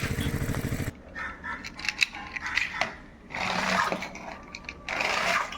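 A buzzing small motor, like a toy vehicle's, cuts off about a second in. Light clicks and knocks follow from toys being handled, with two short bursts of hissing noise.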